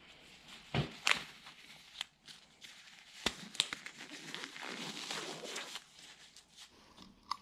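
Disposable blue nitrile gloves being pulled on and worked over the fingers: an irregular rubbery rustling with a few sharp clicks.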